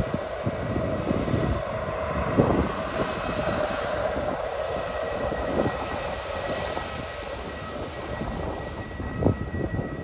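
Jet engines of an easyJet Airbus A319 running with a steady whine as the airliner taxis and turns onto the runway, with gusts of wind rumbling on the microphone.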